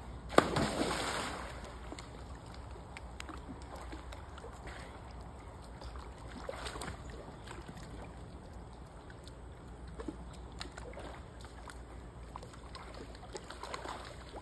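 A person diving head-first into a swimming pool. There is one loud splash about half a second in, then quieter sloshing and lapping of water.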